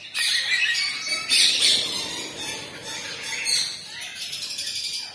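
Lory parrots squawking: several harsh, high screeches in short bursts.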